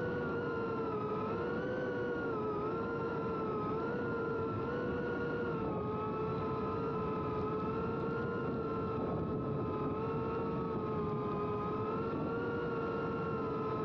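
FPV cinewhoop drone's small brushless motors and ducted propellers whining in flight, a steady hum with two main tones whose pitch wavers slightly as the throttle changes, heard close from the camera on the drone.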